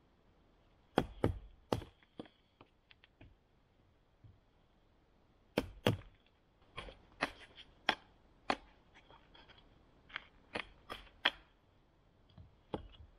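Sharp knocks of a wooden log mallet striking a knife on a stick, batoning the blade through the wood to shape a pointed stake. Three quick knocks about a second in, a pause, then about a dozen more, spaced unevenly.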